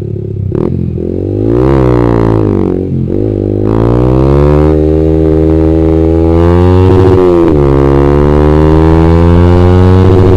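Motorcycle engine through a Ronin Black Katana three-mode aftermarket exhaust, its silencer freshly repacked with new glass wool, accelerating on the road. The engine note rises with throttle and drops back at upshifts two or three times, then holds a steady pull.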